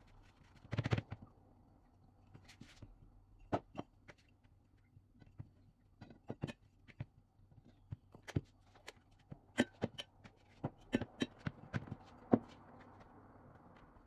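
Irregular soft taps and knocks of hands pressing and handling pastry dough on a plastic cutting board, with a louder cluster of knocks about a second in.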